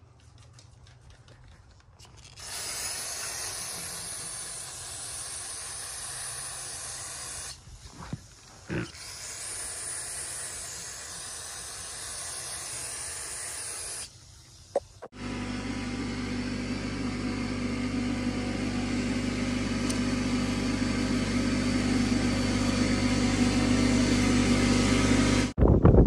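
Two stretches of steady spraying hiss, each a few seconds long. Then a steady low droning hum, like a running motor, grows gradually louder for about ten seconds and cuts off just before the end.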